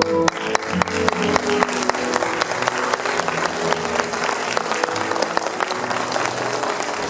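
Theatre audience applauding with dense clapping, over ballet music playing more quietly underneath; the clapping thins out near the end as the music comes back up.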